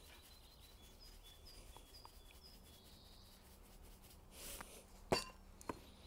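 Quiet outdoor background in which a small bird chirps a short, high phrase several times over. Near the end comes a brief soft rustle and two light clicks as salt is shaken into a steel pot of soup.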